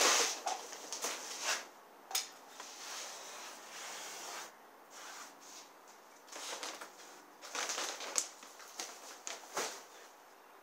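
Sand being pushed and packed into the gap between two nested terracotta pots with a stick and fingers: gritty scraping and crunching in irregular bursts, with a sharp click about two seconds in.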